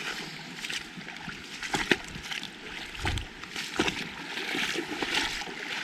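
Water lapping and sloshing, with a few sharp clicks and knocks.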